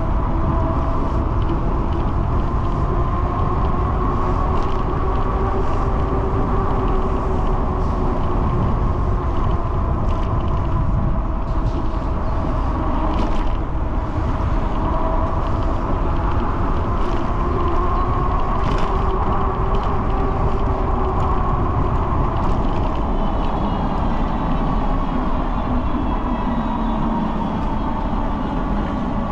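Steady vehicle running noise: a constant low rumble with a faint engine hum that slowly rises and falls in pitch.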